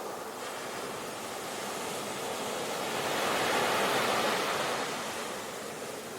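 Ocean waves washing on a shore, a swell building to its loudest about three to four seconds in and then easing off.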